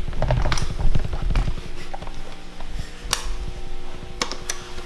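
RAM sticks being pushed and worked into the memory slots of a late-2009 iMac: scattered sharp clicks and taps over low handling rumble, with a faint steady hum underneath. The sticks are not yet seating or clicking into place.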